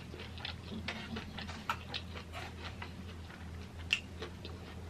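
Close-miked chewing of a soft burger: scattered small wet clicks and smacks from the mouth over a low steady hum, with one sharper click about four seconds in.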